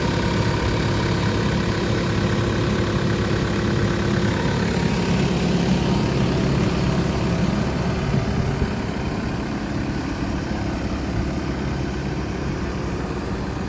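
Caterpillar 308D CR excavator's diesel engine running steadily, easing slightly quieter and less bright about eight seconds in.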